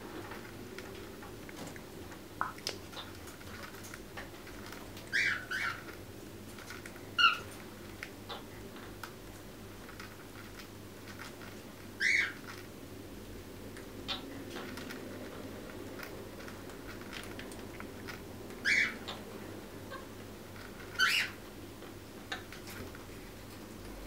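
Quaker parrots (monk parakeets) giving a handful of short, soft chirps spaced several seconds apart over a steady low room hum.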